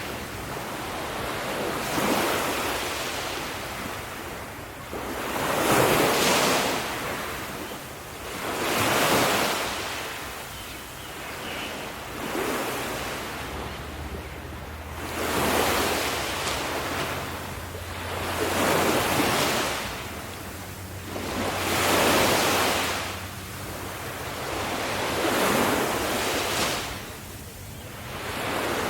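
Ocean waves breaking on the shore, a rushing surge swelling and falling away about every three seconds.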